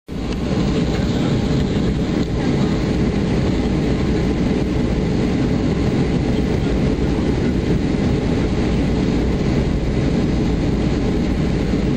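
Cabin noise of a Boeing 737-400 rolling along the ground: a steady, loud, low rumble of its CFM56 jet engines and wheels.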